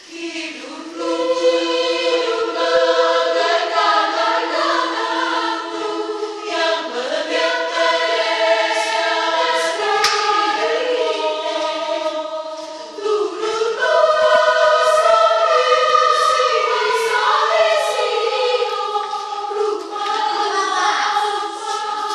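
Women's choir singing a part-song without accompaniment, several voices holding and moving together. The singing enters about a second in and breaks briefly for breath a little past the middle before the next phrase.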